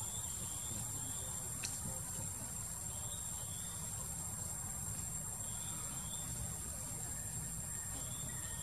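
Steady high-pitched drone of forest insects, with faint short chirps recurring every second or two and one sharp click about a second and a half in, over a low rumble.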